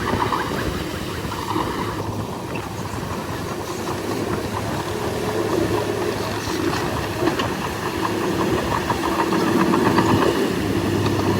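Heavy diesel engine of earthmoving machinery, likely a bulldozer, running steadily under load, with a few scattered metallic clicks.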